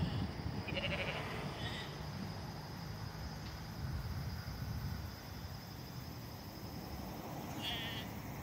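Distant sheep bleating: a couple of short calls about a second in and one wavering call near the end, over a steady low rumble of wind on the microphone.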